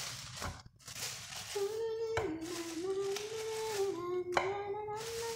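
Plastic bag rustling as raw meat is taken out of it. From about a second and a half in, a person hums a tune over the rustling, with a couple of small knocks.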